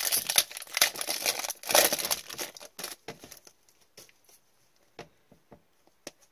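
Foil wrapper of a trading-card pack crinkling and tearing for about three seconds, then a few scattered light ticks as the cards are handled.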